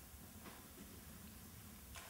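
Near silence: room tone with a faint hiss.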